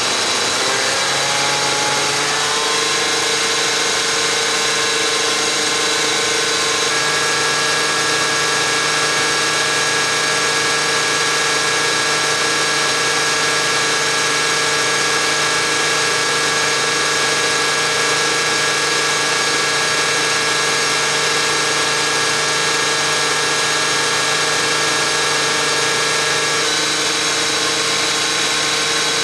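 Bacharach injection pump test stand driving a VE rotary diesel injection pump, with the injectors spraying into the measuring graduates. The machine runs loud and steady; its pitch rises over the first couple of seconds as the pump is brought up from 2500 to 3000 RPM, then holds steady.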